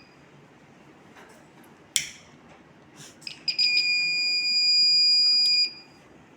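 A few sharp clicks, then a homemade fire alarm's buzzer sounds a steady high-pitched tone for about two seconds and cuts off: the alarm triggered by a lighter's flame.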